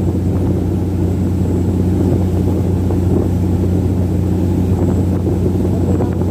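Engine of a fast river passenger launch running steadily at racing speed: a loud, deep, even drone that does not change.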